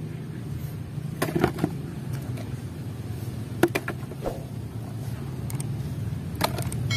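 Muddy plastic toy vehicles knocking lightly on a concrete floor as they are handled and set down, a handful of short clacks spread apart, over a steady low hum.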